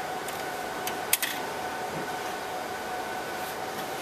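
Light clicks and taps of a metal server riser cage and its cable being handled, the sharpest a double click a little after one second. Underneath is a steady background hum with a faint high tone.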